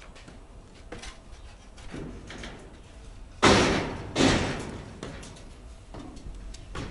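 Two loud bangs about a second apart, each with a short ringing tail, among a few lighter knocks.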